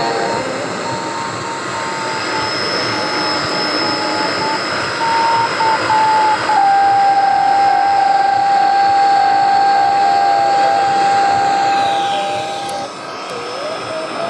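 Shortwave radio static and hiss with a Morse code beep keying on and off, sending the letter C. About halfway through, a steady tone takes over and holds for about six seconds before cutting off near the end.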